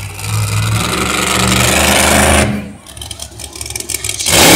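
Monster truck engine running loudly on a steady low note. It drops back about two and a half seconds in to a rapid, rattling, lumpy idle, then revs up hard near the end.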